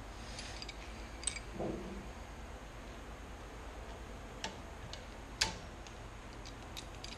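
A few scattered sharp metal clicks and clinks of a wrench and axle parts being handled while fitting the pinion yoke and nut on a Dana 30 differential. The loudest click comes about five and a half seconds in, and there is a duller knock near two seconds.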